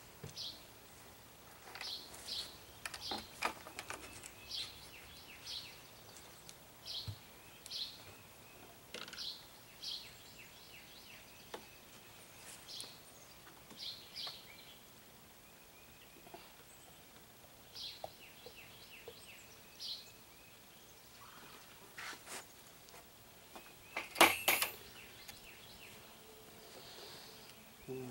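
A bird chirping over and over in short, high notes, often in pairs, with a few light handling clicks and one loud clatter about 24 seconds in.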